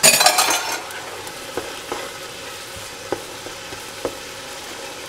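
Tomato and onion sauce sizzling in a pot while a wooden spoon stirs in tomato paste. The sizzle is loudest for the first second, then settles to a steady hiss, with the spoon knocking lightly against the pot a few times.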